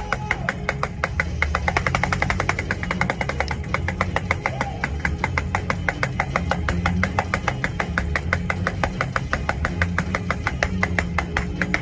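Tambourine beaten fast and steadily with a drumstick, about eight hits a second, jingles ringing on every stroke, over a low bass backing of fast praise-break church music.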